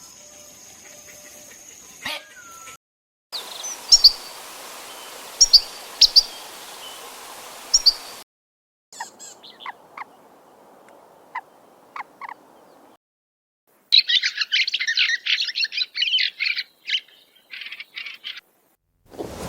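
Bird calls in several short clips separated by brief silent gaps: a few sharp high chirps, then sparser calls, then a dense run of rapid chirping near the end.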